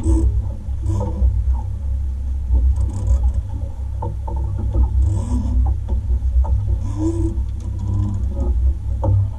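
Steady low rumble aboard a small fishing boat at sea, with scattered short knocks and thumps on the boat.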